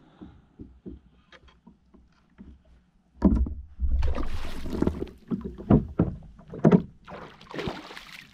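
A hooked kingfish (king mackerel) splashing and thrashing at the surface right beside a kayak. It starts with a sudden heavy splash about three seconds in, followed by repeated splashes and sharp knocks.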